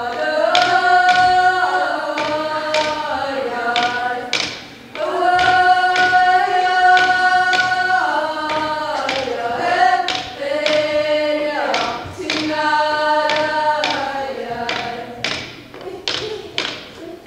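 Greenlandic frame drum (qilaat) beaten with a stick in a steady beat while voices sing in long held notes, with a short break about five seconds in. The singing fades near the end, leaving the drum beats.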